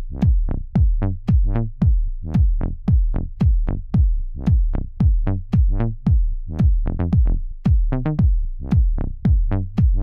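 Electronic background music with a steady drum-machine beat.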